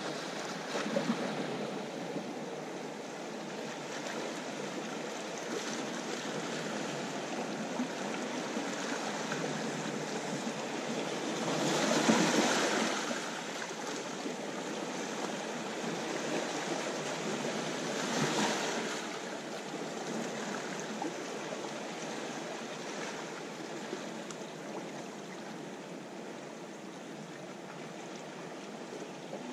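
Calm sea washing against a rocky, pebbly shore: a steady hiss of small waves, with two larger waves swelling louder partway through.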